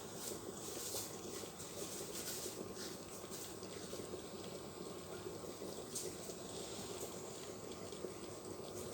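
Philips HD5407 drip coffee maker brewing: water boiling in its heater and bubbling through, a steady hiss with small irregular crackles and pops.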